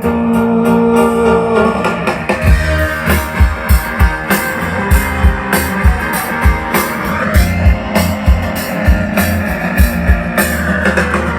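Live band playing an instrumental passage with no singing: a held chord, then steady drum beats come in about two and a half seconds in and carry on under the music.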